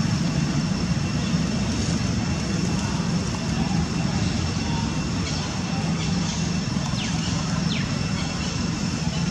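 Steady low outdoor background rumble with a faint, steady high-pitched whine above it.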